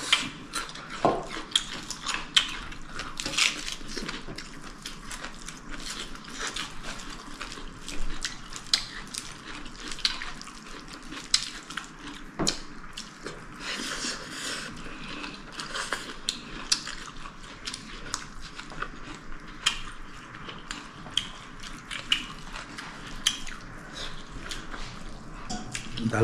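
Whole spice grains being crushed by hand: a gritty scraping with many irregular sharp clicks.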